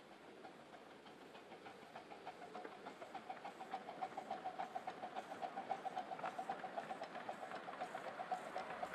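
7¼-inch gauge miniature train running past, a fast even rhythmic beat that grows louder as it comes close.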